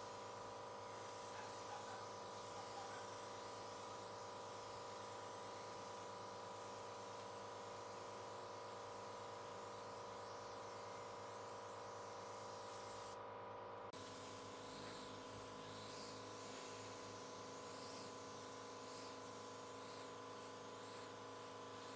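Faint, steady buzzing hum with a light hiss from a pneumatic spray-finishing rig: an air compressor feeding a spray gun that is applying finish to bare pine. The hum changes tone about fourteen seconds in.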